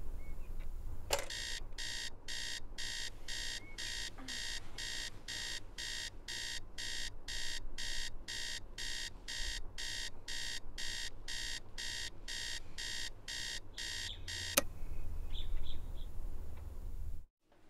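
Electronic alarm clock beeping, about two beeps a second for some thirteen seconds, with a click as it starts and another click as it is switched off: a morning wake-up alarm.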